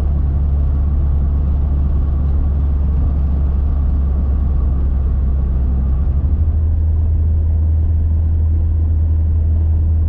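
Cabin noise of a moving car: engine and road noise make a steady, loud low drone, which shifts slightly in pitch about six seconds in.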